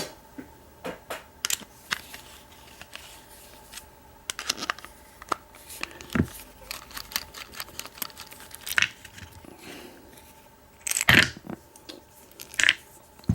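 Scattered small metal clicks and clacks as a Phillips screwdriver works on an American 1105 padlock to take it apart, with a louder clatter of handling about eleven seconds in.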